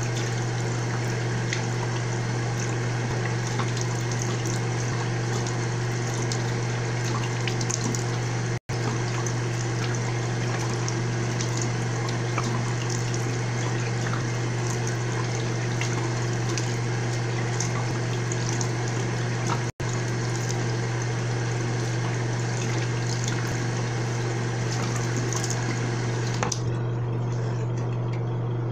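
Bathroom sink tap running while water is splashed on the face, with many small splashes over the steady rush of the tap and a steady low hum underneath.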